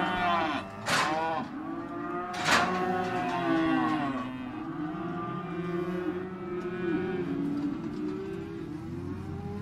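Many cattle mooing at once, their calls overlapping, with louder calls about one and two and a half seconds in.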